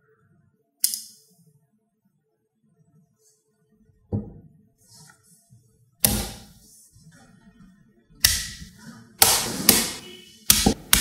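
Neodymium rod and cube magnets and steel balls snapping together with sharp clicks: one about a second in, another near four seconds, then a quicker run of loud clacks over the last five seconds.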